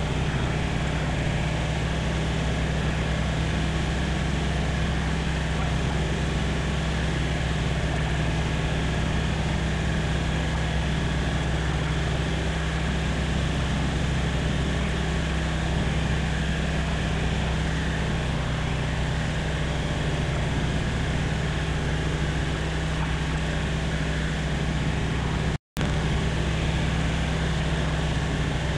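Light propeller aircraft's piston engine and propeller running at steady power, a constant drone over broad hiss. The sound drops out for a split second near the end.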